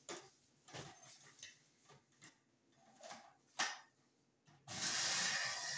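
A few light plastic clicks and knocks as the blender jar is seated on its base, then near the end an electric blender switches on and runs steadily, grinding mint, coriander and green chillies with water into chutney.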